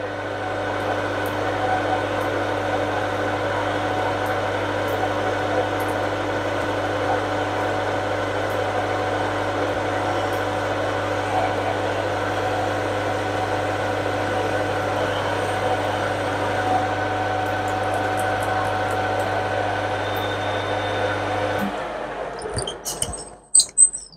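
Metal lathe running steadily while the tool takes a light 0.1 mm finishing cut on a shaft. The motor is switched off about 22 seconds in and the hum dies away, followed by a few clicks.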